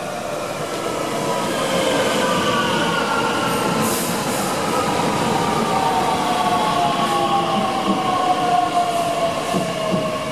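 Red DB Regio Talent 2 electric multiple unit running past along the platform, with wheels on the rails and the electric drive's whine. Several whine tones fall slowly in pitch, and the sound grows louder over the first two seconds and then stays loud.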